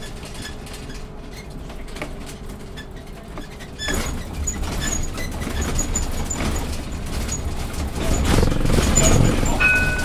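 City bus driving in traffic: engine and road noise that jumps up sharply about four seconds in as it pulls harder, growing louder again near the end. A short electronic beep sounds just before the end.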